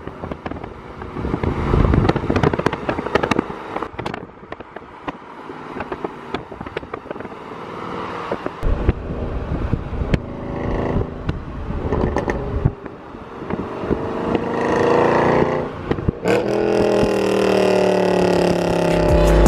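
Mercedes C63 AMG's 6.2-litre V8 running and revving, with scattered clicks early on; the pitch climbs about three-quarters of the way in, then the engine comes in suddenly louder under a sustained pull near the end.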